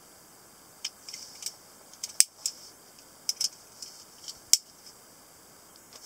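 Sharp metallic clicks and small snaps from a PK48 Italian stiletto automatic knife as its blade is unlocked and folded shut into the handle; the two loudest clicks come about two seconds in and at about four and a half seconds.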